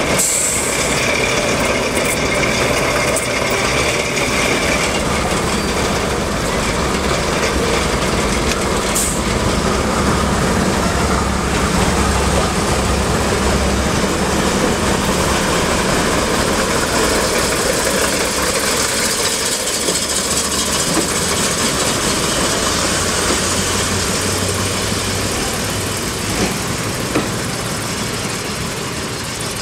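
BR Class 101 diesel multiple unit's underfloor diesel engines running as the train pulls away from the platform, the sound fading a little near the end.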